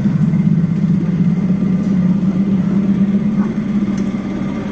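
Suzuki DF 9.9BS two-cylinder four-stroke outboard motor running steadily in forward gear on a test run. The engine note is even and eases off slightly near the end.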